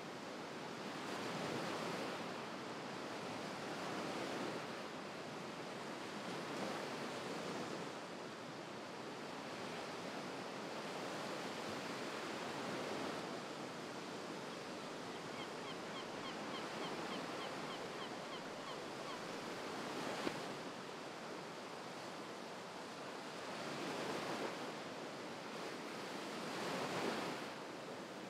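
Steady rushing noise like surf washing in, swelling and easing every few seconds. About halfway through there is a short run of faint, quick high ticks.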